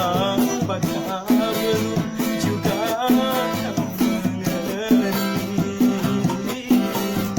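Live acoustic music: a guitar played with a shaker keeping a steady beat, under a wavering melody line.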